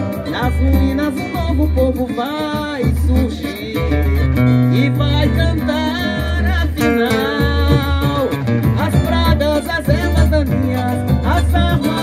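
Live samba band playing: a woman singing into a microphone over guitar and a steady low drum beat.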